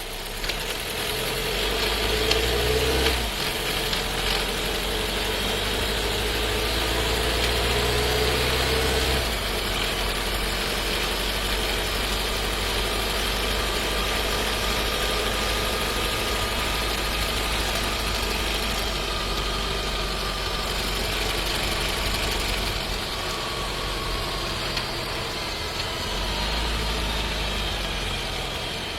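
In-cabin sound of a Skoda Scala 1.5 TSI with a seven-speed DQ200 dry-clutch DSG on the move: engine and running noise, with the engine note changing abruptly about a third of the way in. Near the end comes a loud downshift as the car slows to a stop, the harsh shifting the owner considers a transmission fault.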